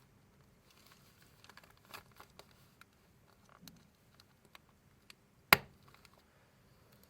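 Paper and a ring binder being handled: light rustling and small scattered clicks, with one sharp loud click about five and a half seconds in.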